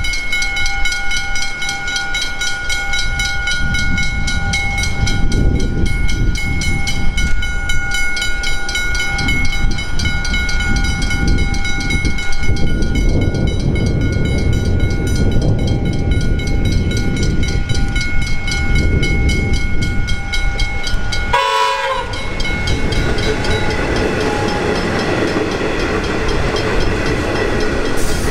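A train passing close by with a heavy, uneven rumble, while steady high ringing tones, typical of level crossing bells, sound over it. About 21 seconds in the sound breaks off abruptly, and a train's electric motor whine follows, slowly rising in pitch.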